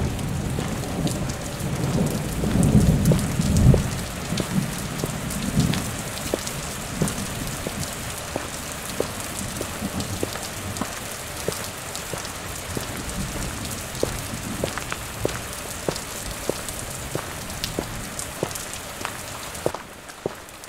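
Rain falling, a steady hiss full of separate drop hits, with a low rumble of thunder at the start that dies away about four seconds in. The rain drops in level near the end.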